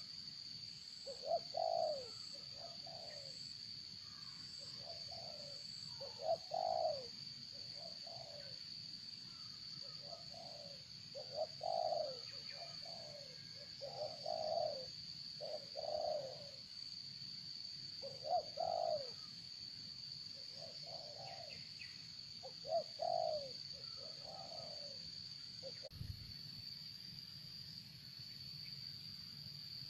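A dove cooing: short low coos in groups of two or three, repeated every couple of seconds, over a steady high-pitched whine.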